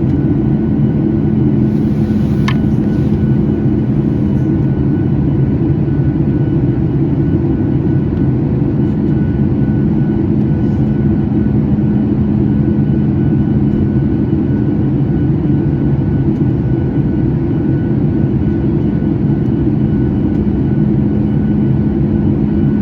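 Cabin noise of a Boeing 737 MAX in flight: a loud, steady rumble of engines and airflow with a low, even hum. A brief click sounds about two and a half seconds in.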